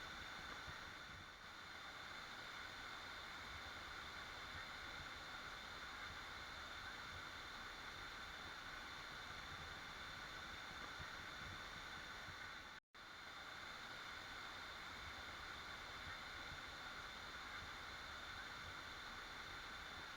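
Steady rushing of a waterfall, broken once by a split-second gap of silence about thirteen seconds in.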